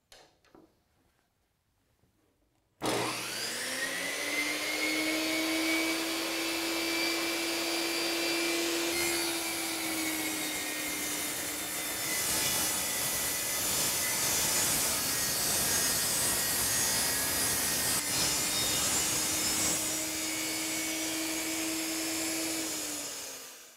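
Skil table saw starting up about three seconds in, its motor note rising as it spins up, then running steadily while the blade rips a board lengthwise, with a harsher cutting noise in the middle of the run. The sound stops abruptly just before the end.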